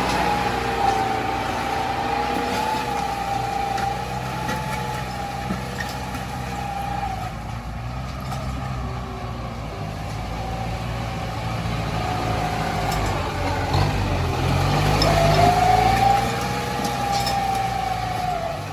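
Heavy earth-moving machine engine running steadily, with a whining tone that slowly rises and falls in pitch. It grows louder for a couple of seconds about fifteen seconds in.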